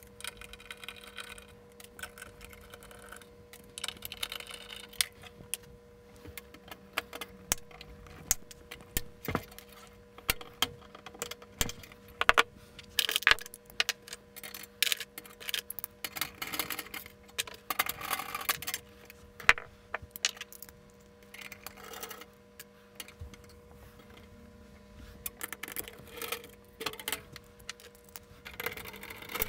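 Scattered clicks, clinks and knocks of metal parts and hand tools being handled while a scanner's photomultiplier and mirror assembly is taken apart. A faint steady hum runs underneath.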